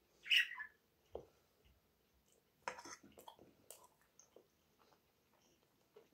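Close-up eating sounds: chewing and mouth noises, with a few short clicks of a fork against a metal frying pan. A brief high squeak, falling in pitch, comes about half a second in and is the loudest sound.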